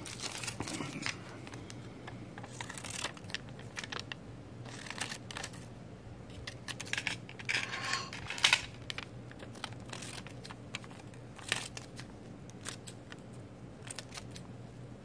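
Scissors snipping through the thin, shiny magnetic disk of a floppy disk, with the crinkle of the cut plastic. The snips come irregularly, and the loudest is about eight and a half seconds in.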